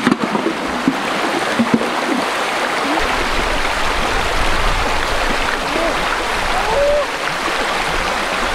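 Shallow river running over rocks, a steady rush of water, with splashing around the start and a few short chirps in the middle.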